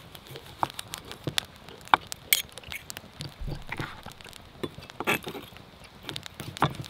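Steak knife and fork working on a wooden cutting board while a tomahawk steak is cut. The blade and tines make irregular light taps, clicks and the odd short clink against the board.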